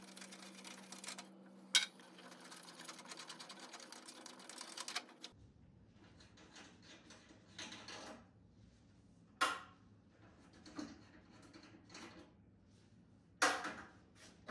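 A tool working the heating element nuts of a Neptronic SKE4 steam humidifier: about five seconds of fast, even clicking over a low hum, then stopping abruptly, followed by scattered metal clinks and knocks as the nuts come loose.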